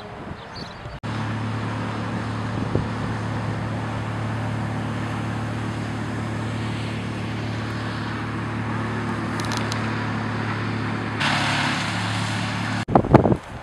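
An engine running at a steady speed, an even hum under a hiss of noise, cut in suddenly about a second in and cut off shortly before the end.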